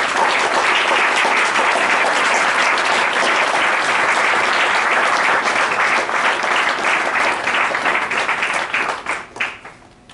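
Audience applauding at the end of a talk, steady dense clapping that dies away about nine seconds in with a few last claps.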